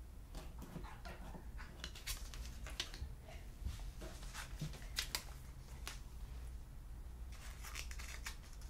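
Trading cards being handled and slid against one another, making scattered light clicks and flicks, with a short run of brushing near the end. A low steady hum sits underneath.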